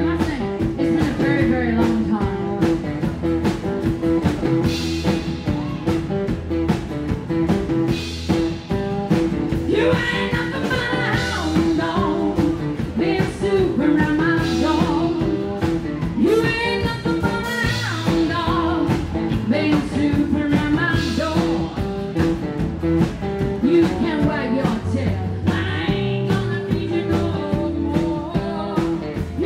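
Rockabilly band playing live: a woman singing over electric guitar, acoustic guitar, upright double bass and drums with a steady beat.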